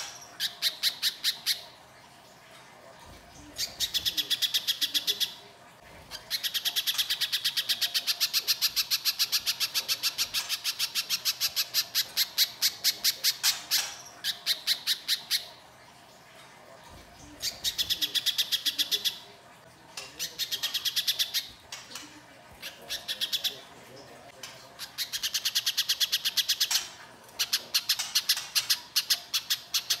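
A little spiderhunter (pijantung pisang) calling in fast runs of harsh, sharp notes, several a second, in bouts lasting from about a second to seven seconds with short pauses between.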